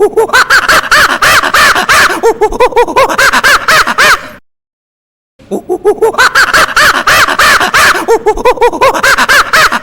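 A monkey calling in a fast run of short rising-and-falling cries, several a second. The calls come in two runs of about four seconds each, split by a second of dead silence, and the second run repeats the first like a looped recording.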